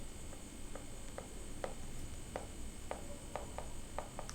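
Faint, light clicks at an irregular pace of roughly three a second, from writing during the lecture, over a low steady hiss.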